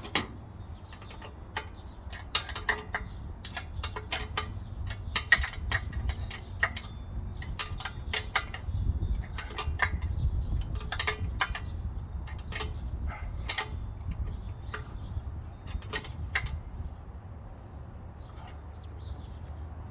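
Irregular clicks and knocks of hand tools and fittings being handled while working on an air compressor's regulator and gauge plumbing, over a low rumble.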